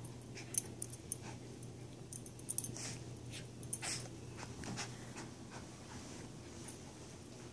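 Schipperke digging and biting at a plush dog bed: irregular scratchy rustling with several sharp bursts in the first few seconds.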